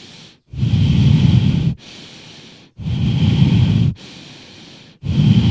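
A man demonstrating deep, forceful breathing: three loud breaths of about a second each, with quieter breaths between them.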